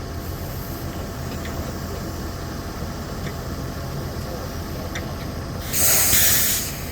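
Heavy vehicle engine running steadily at a low pitch. Near the end comes a loud hiss of air lasting about a second, louder than the engine.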